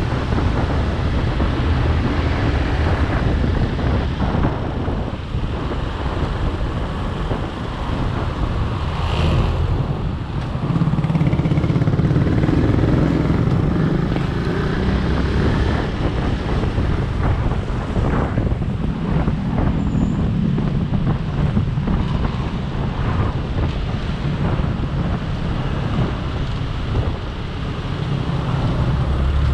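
Small motorcycle engine running as the bike rides and slows in traffic, with wind buffeting the microphone; the engine hum grows stronger for a few seconds near the middle.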